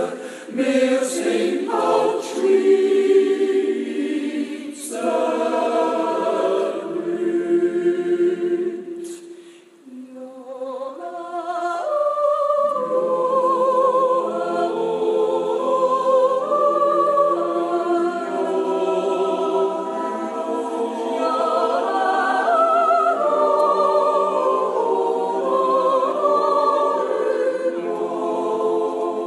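A Swiss yodel choir singing a Jodellied a cappella in close harmony, with sustained chords. The singing breaks off briefly about ten seconds in, then comes back in for a long, held choral passage.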